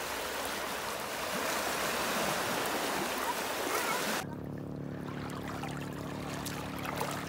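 Small waves washing and rushing over a rocky, stony shoreline. About four seconds in, this cuts off abruptly and a quieter scene follows, with a steady low hum under lighter water sounds.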